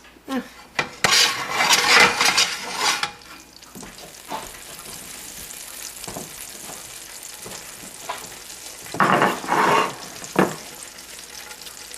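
Butter and olive oil sizzling steadily in a frying pan. Louder bursts of noise break in from about a second in for two seconds, and again near the end.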